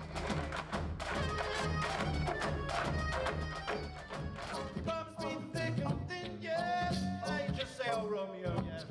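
Music with a steady percussive beat and heavy bass. About halfway through, a singing voice comes in over it.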